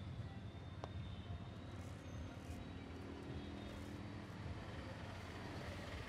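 Steady low rumble of road traffic, trucks and motorbikes going by, with a single sharp click about a second in.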